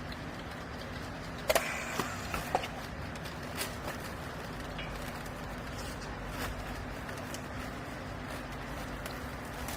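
Hydraulic vertical clothes baler's power unit running with a steady hum, with a few sharp knocks about one and a half to two and a half seconds in.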